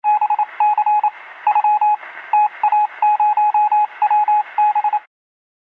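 Radio-style Morse code beeping: a single tone keyed on and off in short, unevenly grouped beeps over a band-limited hiss, like a radio signal. It cuts off suddenly about five seconds in.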